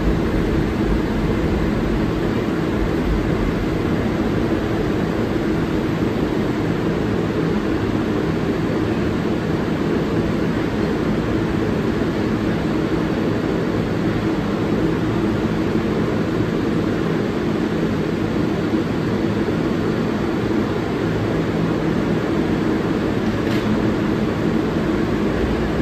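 A stationary R188 subway train gives a steady low hum and rush from its onboard equipment and air-conditioning while it stands at the platform.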